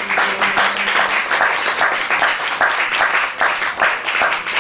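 Audience applauding, a dense steady patter of many hands clapping. A last held note fades out in the first half-second.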